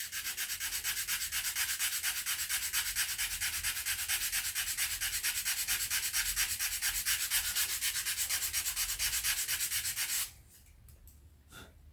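Sandpaper rubbed by hand over a wooden rifle stock in quick, even back-and-forth strokes, sanding around a small dent; it stops about ten seconds in.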